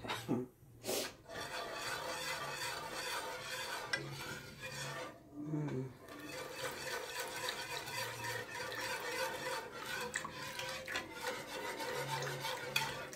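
Wire whisk scraping and stirring steadily around a nonstick pan, whisking chicken broth into a flour roux as it is poured in.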